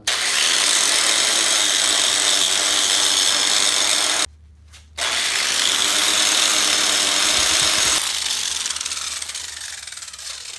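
Angle grinder with a wire wheel scrubbing rust and grime off an old brake master cylinder held in a vise. It runs loud and steady for about four seconds, breaks off sharply for under a second, runs again for about three seconds, then fades out gradually near the end.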